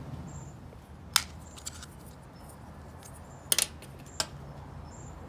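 A handful of short, sharp clicks and taps as small furnace burner parts and a roll of Teflon tape are handled and set down on a glass tabletop, with a quick double click a little past the middle.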